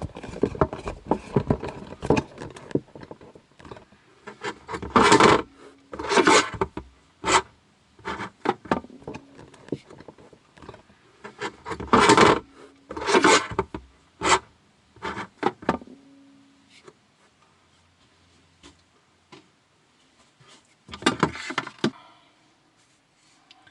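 A wooden interior panel being worked open by hand: irregular rubbing, scraping and knocking of wood, loudest in a few short bursts.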